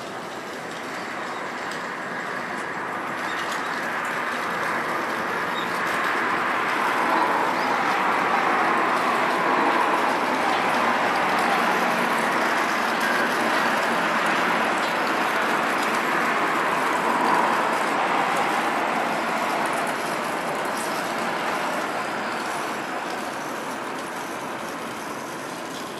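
Noise of a passing vehicle, a steady rushing sound that swells to a peak about midway and then slowly fades.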